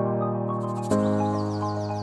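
Calm new-age background music with sustained chords that change about once a second. From about halfway, a run of quick, high, falling bird-like chirps joins in.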